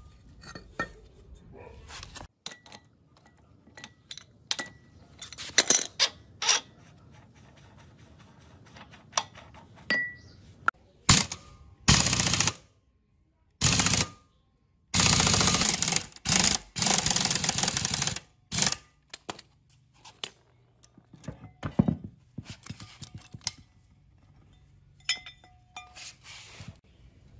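Metal clinks and knocks of tools and a rusty cast-iron V-belt pulley being worked loose. About halfway through come several loud bursts of fast, rattling clicks as a gear puller's screw is wound in to draw the flywheel off the engine.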